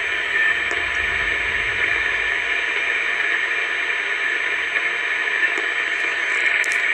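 Steady hiss of static from a CB radio's speaker on an open upper-sideband channel in the 11-metre band, with no station coming through.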